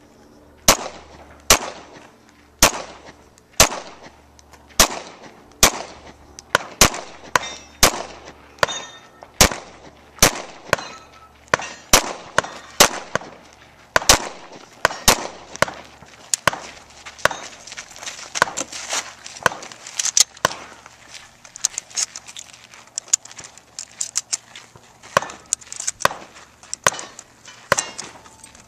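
Semi-automatic pistol shots fired one at a time at a steady pace, about one a second, each a sharp crack with a short echo. After about sixteen seconds the cracks come quieter, faster and more irregular.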